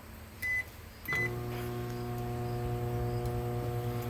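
Hamilton Beach microwave oven keypad beeping twice as the time is entered and started. The oven then starts up and runs with a steady hum.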